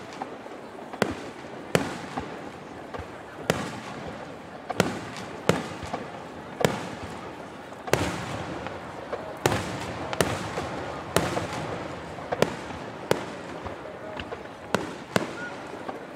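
Aerial fireworks shells bursting in quick succession, a sharp bang about once a second, each trailing off in echo.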